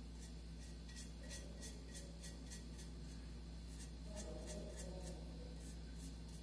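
Paintbrush stroking wet paint onto a ridged vase: faint, rhythmic bristle scratching at about three strokes a second, over a steady low hum.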